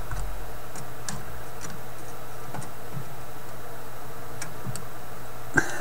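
Faint, scattered small clicks and ticks of pliers and wire leads as a replacement filter capacitor is worked into place in a tube radio chassis, over a steady low hum.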